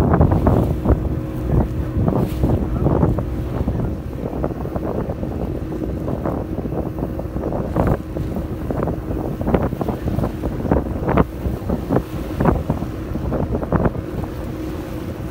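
Boat engine drone over open water, with wind buffeting the microphone in irregular gusts and splashes.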